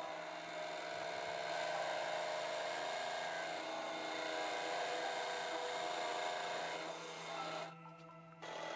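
Hydraulic press running with a steady hum and whine as its wedge blade pushes down through stacked cast metal discs. The sound drops away for under a second near the end, then comes back.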